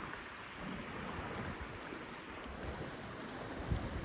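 Mountain river rushing steadily, with a few low thuds on the microphone near the end.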